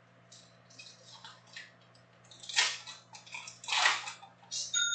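Foil trading card pack being torn open and the cards slid out: crinkling and tearing of the foil wrapper in short bursts, with two louder rips about two and a half and four seconds in.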